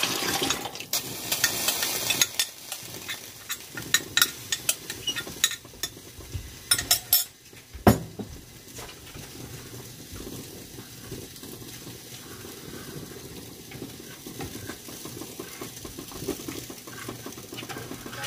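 Dissolved palabok sauce mix poured into a hot stainless-steel pan of ground pork and shrimp, sizzling, while a metal spoon clinks and scrapes against the bowl and pan, with one sharp clink about eight seconds in. After that a spatula stirs through the sauce in the pan with a soft, steady scraping.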